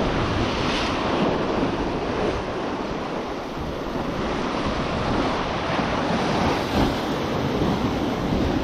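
Surf breaking and washing on the shore, with wind buffeting the microphone.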